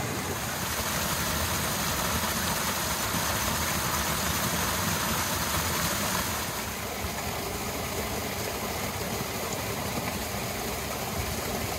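A river rushing over rocks close by, a steady full noise of flowing water that eases slightly a little past the middle.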